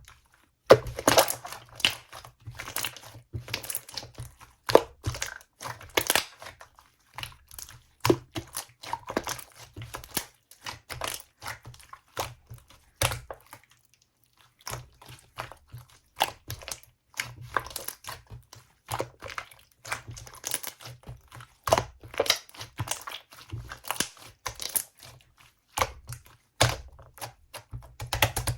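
Clear slime being squished and folded by hand, giving irregular sticky clicks and small bubble pops, with a short pause about halfway.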